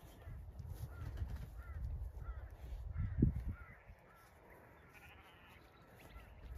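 Birds calling in a quick run of short, falling notes that die away about four seconds in, over a low rumble, with a louder low thump about three seconds in.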